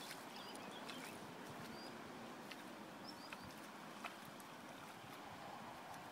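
Steady rush of a shallow river running over stones, with a few faint clicks and short high chirps over it.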